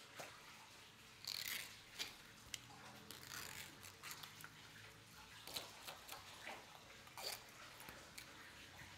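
Knife and gloved hands gutting and deboning raw trout on a cutting board: faint, scattered wet scrapes, squelches and light taps.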